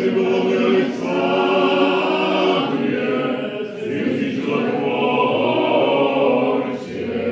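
A men's choir singing Orthodox church chant in sustained chords, with the chord changing every second or two.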